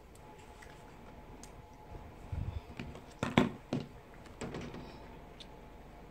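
Light clicks and knocks of plastic icing tubes and their caps being handled and set down on a table. There is a dull thump about two seconds in and the sharpest click a little after three seconds.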